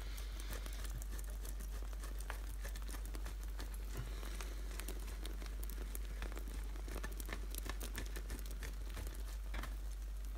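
Cheese being grated on a metal box grater: irregular scratchy rasping strokes, one after another, over a low steady hum.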